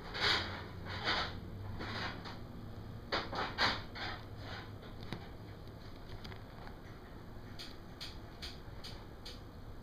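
Pixie-Bob kittens play fighting: several short scratchy scuffles and scrabbles in the first few seconds, then a run of light ticks near the end.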